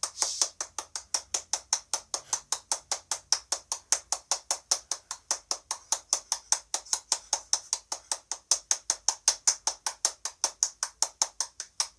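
Steady, rapid, high-pitched ticking, about six ticks a second, even and unbroken.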